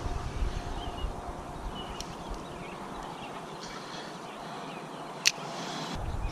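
Wind noise on the microphone, a low rumble that drops away for a few seconds in the middle and picks up again near the end, with one sharp click a little after five seconds.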